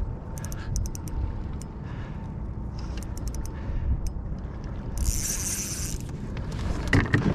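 Wind buffeting the microphone while a flathead is played on a spinning rod, with short runs of clicks from the reel, a one-second hiss about five seconds in and a loud knock near the end.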